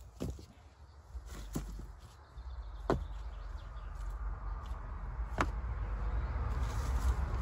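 Loose old bricks knocking against each other as they are picked up and set down, about five sharp clacks spread out, over a steady low rumble.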